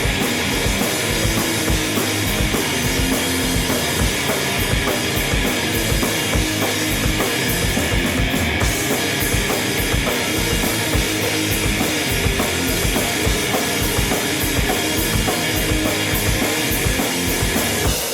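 Loud noise-rock band playing live, led by a drum kit pounding out a fast, dense beat with heavy bass drum under electric guitar.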